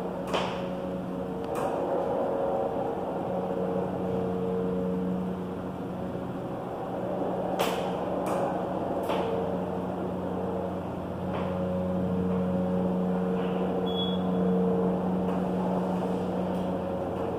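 Elevator car travelling upward: a steady hum from the drive and ride noise, with a few faint clicks from the cab along the way.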